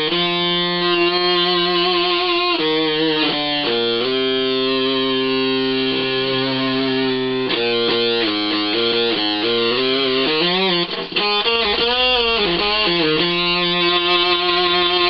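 Electric guitar played through the PNP fuzz section of a breadboarded Schumann Two Face circuit: held, heavily overdriven notes that change pitch several times, with wavering bends about two-thirds of the way through. The fuzz has a sputtery 'Velcro' texture with an octave bloom.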